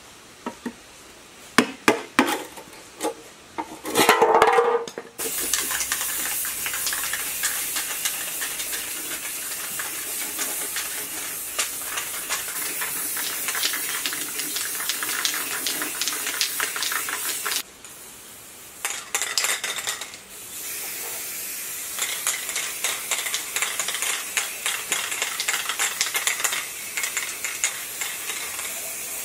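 An aerosol spray-paint can hissing in long, steady passes, broken twice by brief pauses about two-thirds of the way through. It is preceded by a few sharp metal clicks and knocks in the first seconds.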